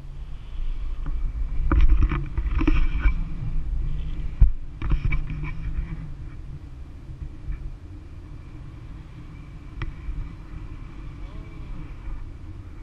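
Wind rushing over the camera microphone of a tandem paraglider in flight, a rough, low rumble that swells in the first half and then settles lower. A few sharp knocks come through it, the loudest about four and a half seconds in.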